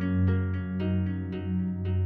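Background music: plucked-string notes, about two a second, over a steady low drone.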